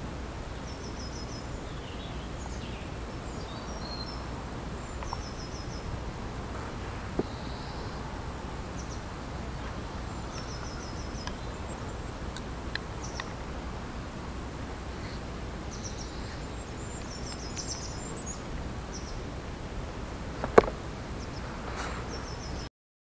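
Small garden birds chirping in short, high, repeated phrases over a steady countryside background hiss with a low rumble. A single sharp click stands out loudly near the end, and then the sound cuts off abruptly.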